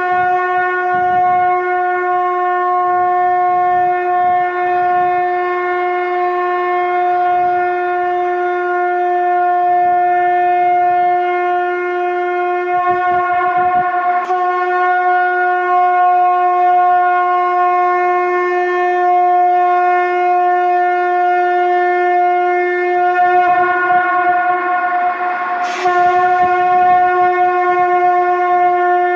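Conch shell (shankh) blown in long steady blasts on one held, buzzing note rich in overtones. New blasts start about halfway through and again near the end.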